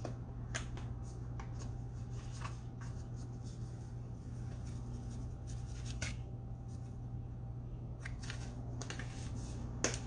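A run of short, light clicks and rustling scrapes from hands handling things at a kitchen counter, clustered toward the end, over a steady low hum.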